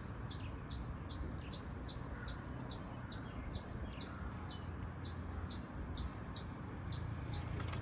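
Chipmunk chipping: short, sharp, high-pitched chip calls repeated evenly about three times a second.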